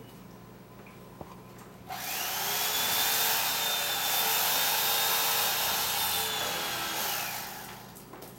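Small electric motor starts abruptly about two seconds in, runs with a steady high whine for about five seconds, then winds down.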